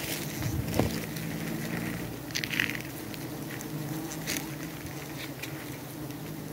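Giant honeybees buzzing in a steady hum, with a few short clicks and crackles over it.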